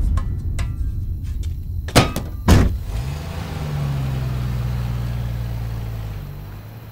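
Two car doors thud shut about half a second apart. Then the car's engine starts with a short rising note and runs steadily, fading near the end.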